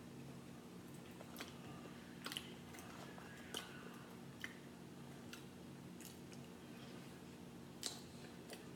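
Eating sounds: chewing, and a handful of sharp, scattered clicks and cracks as crab legs and shrimp shells are picked apart by hand, over a faint steady hum.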